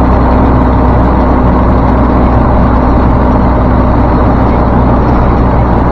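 Dump truck's diesel engine and road noise at highway speed, heard inside the cab as a loud, steady drone.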